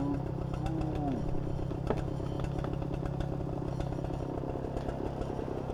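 Gas chainsaw running steadily under load as it cuts through a dead oak trunk, with a few faint clicks and knocks over the drone.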